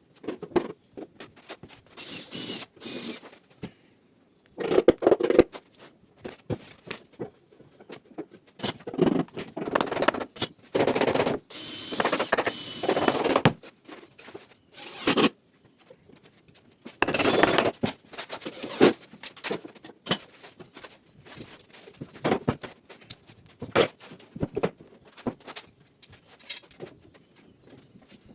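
Irregular knocks, taps and scraping of wooden armchair parts being handled and worked during glue-up, with a few longer rubbing or scraping stretches.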